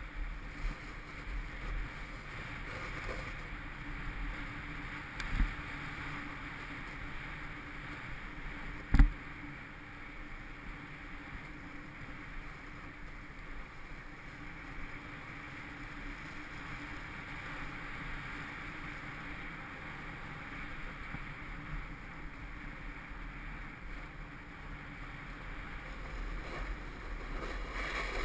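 Snowboard sliding and carving over groomed, packed snow, a steady scraping hiss mixed with wind on the microphone. A sharp knock about nine seconds in, and a smaller one about five seconds in.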